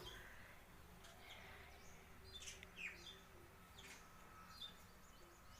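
House sparrows chirping faintly: short, scattered chirps that sweep downward in pitch.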